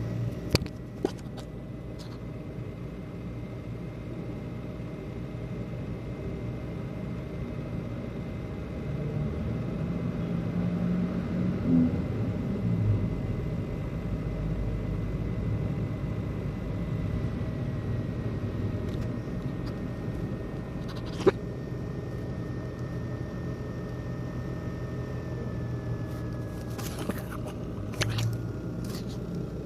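ASUS X543UA laptop CPU fan running with a buzzing rattle over a low hum, the fan bearing faulty. A thin steady whine steps down in pitch a little past halfway and again near the end, and a few sharp clicks sound near the start, about two-thirds in and near the end.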